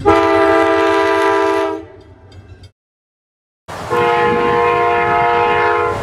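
Nathan K5LA five-chime air horn on an Amtrak Budd Metroliner cab car, sounding a chord of several notes: one blast of about two seconds over the low rumble of the train, then after a second of silence a second blast of about two seconds.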